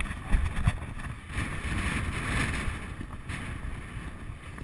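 Wind rushing over the microphone of a camera carried by a rider on a cantering horse, with dull thuds of hoofbeats on turf, loudest in a couple of heavy thuds near the start.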